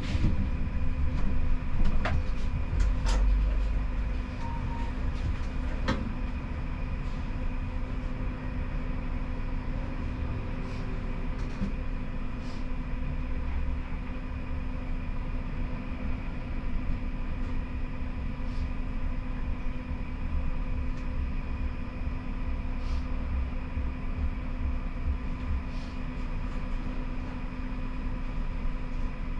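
Siemens Combino tram running, heard from the driver's cab: a steady low rumble with a constant hum, and a few sharp clicks in the first six seconds.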